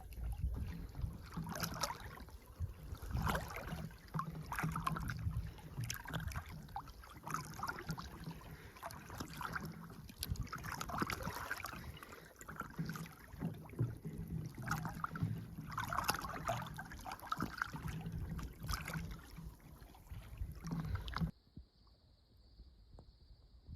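Irregular splashing and rustling of water, with a low rumble underneath, stopping abruptly about 21 seconds in.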